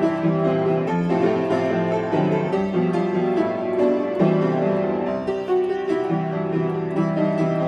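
Upright piano being played: a continuous melody over held low notes.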